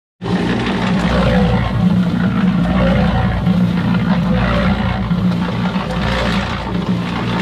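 A small concrete mixer running: a steady motor hum under the rough churning rattle of the drum turning its load. It starts abruptly just after the opening. The motor is working hard with a drum overloaded with concrete.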